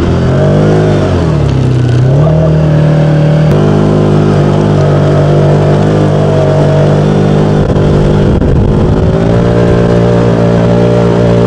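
Side-by-side UTV engine running steadily while towing two snow tubes. Its pitch dips and rises in the first couple of seconds, then holds steady, with another brief change about eight seconds in.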